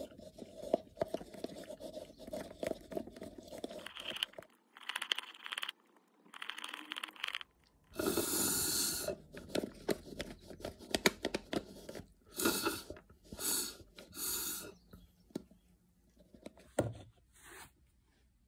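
Slurping a frozen chocolate-banana drink through a straw from a plastic cup, in several loud sucking bursts as the cup runs nearly empty, with crackling and scraping of the plastic cup and straw in between.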